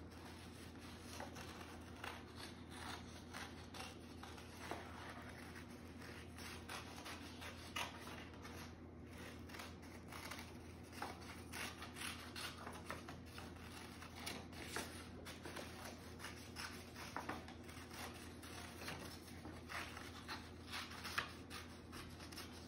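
Scissors cutting through a sheet of black paper: a long run of faint, irregular snips with the paper rustling between cuts.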